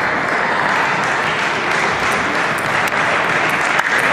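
Steady hubbub of a busy table tennis hall: a wash of crowd noise and many matches under way, with scattered sharp clicks of table tennis balls striking tables and bats.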